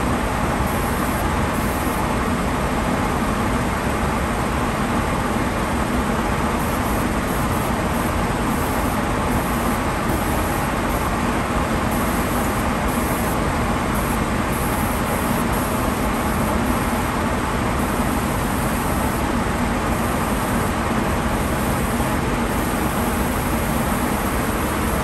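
Steady, unbroken rush of air in a Cerakote spray booth, from the booth's ventilation and the compressed-air spray gun, with a low hum underneath.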